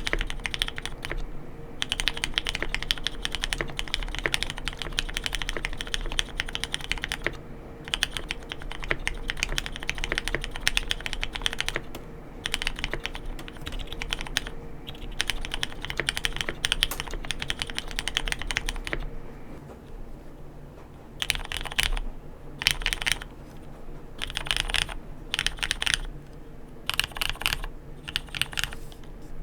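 Typing on a Mode Sonnet custom mechanical keyboard fitted with lubed, filmed, re-sprung Hyperglide Black linear switches and KBDfans Clear Aurora keycaps. The keystrokes run as steady continuous typing, and about two-thirds of the way through they turn into short separate rolls of a few keys, with pauses between.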